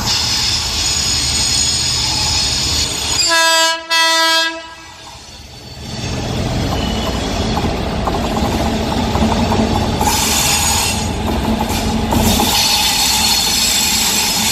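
Indian Railways train running on the track, then a short locomotive horn blast about three seconds in, lasting about a second and a half. The steady rumble and clatter of train wheels on the rails follows, with two stretches of high-pitched wheel noise near the end.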